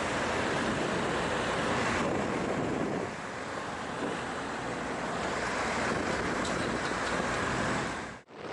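Steady rushing wind on the microphone over a vehicle's running noise, with no distinct events; the sound drops out abruptly for a moment near the end.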